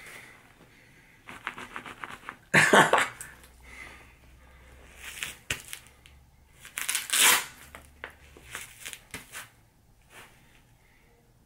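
A boxing glove being handled and pulled onto a hand: several short bursts of rubbing and scuffing, the loudest about two and a half seconds in and again around seven seconds.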